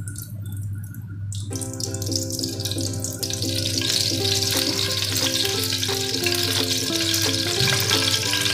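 Cooking oil poured in a thin stream into a preheated frying pan and starting to sizzle, the hiss growing louder from about three seconds in. Background music plays over it.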